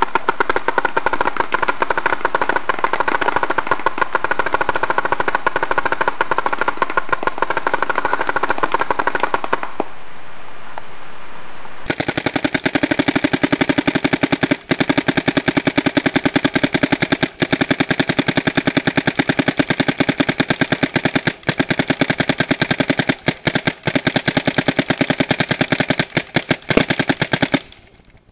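Electronic speedball paintball markers firing very rapid strings of shots, many a second. One burst lasts about ten seconds. After a pause of about two seconds a second long string follows, broken by brief gaps, and stops near the end.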